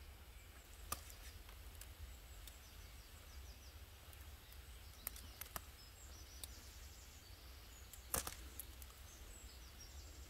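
A few sharp snaps and clicks as ripe rose hips are picked by hand off the thorny stems of a wild rose bush. The loudest comes about eight seconds in, over a low steady rumble.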